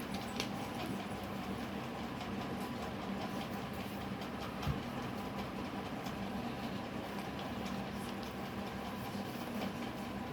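Steady mechanical hum with hiss, sprinkled with faint light ticks and a single soft knock about halfway through.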